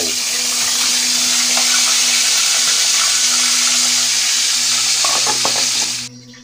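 Food frying in a hot pan: a loud, steady sizzle that cuts off suddenly about six seconds in.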